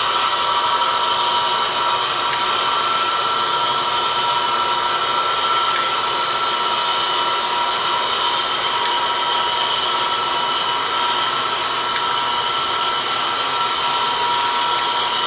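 HO scale model train running on the layout: a steady whirring with a high, level whine and a few faint clicks.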